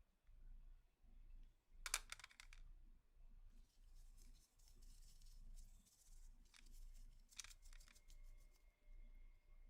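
Steel wool scrubbing metal pistol parts: faint, scratchy strokes in short bursts, about two seconds in and again around seven seconds in, over a faint low hum.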